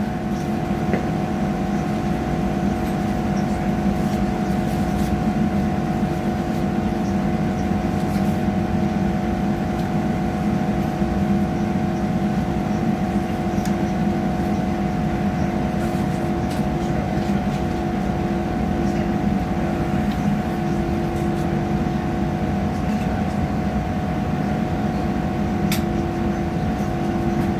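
Inside a diesel passenger train running between stations: a steady rumble of wheels and running gear with an even engine hum, and a few faint clicks.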